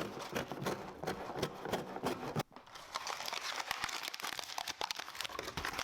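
Packaging being handled: irregular crinkling and crackling, with a brief pause about two and a half seconds in.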